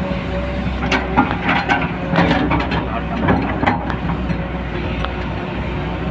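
Backhoe loader's diesel engine running steadily, with a run of metallic clanks and scrapes for a few seconds in the middle.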